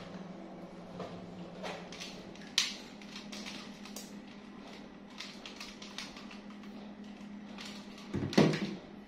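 Scattered light clicks and knocks, with a sharp click about two and a half seconds in and a louder thump near the end, over a steady low hum.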